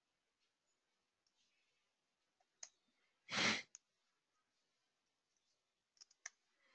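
Near silence, broken by a few faint keyboard clicks and one short, loud breath out into the microphone about three and a half seconds in.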